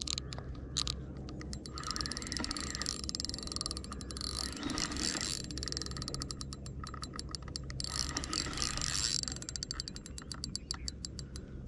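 Spinning reel being cranked to bring in a hooked fish: its gears whir with rapid fine clicking that comes in spells. A low steady hum runs underneath.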